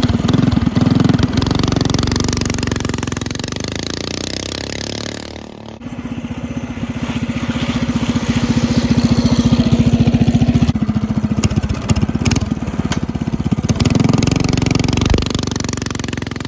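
Vintage minibike's small engine running under throttle, dropping off briefly about six seconds in and then picking back up.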